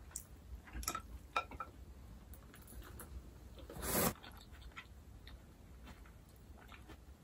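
Quiet mouth sounds of eating: small smacks and clicks while chewing. About four seconds in comes one short, louder slurp as jjajangmyeon noodles are sucked up from the plate.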